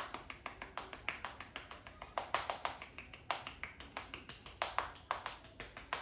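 Quick, uneven series of sharp taps from a barber's open hand striking the top of a person's head during a head massage, about four or five a second.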